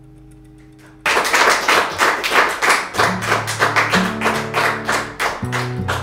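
A guitar chord rings out and fades, then about a second in an old electro-mechanical rhythm machine starts a fast, even pattern of sharp ticks and taps. Low sustained notes join the pattern about three seconds in.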